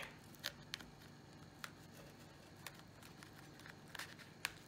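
Table knife cutting a slice out of a baked pie in a foil pan: a few faint, scattered clicks and scrapes as the blade works through the crust.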